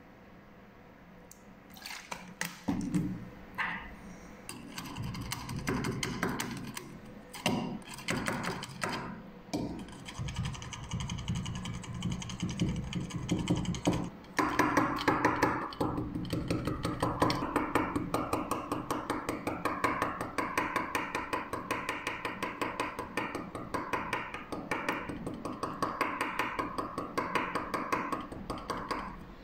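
Background music with a steady beat, growing fuller and louder about halfway through. Scattered clicks and taps come from handling a small sealed lead-acid battery with a screwdriver.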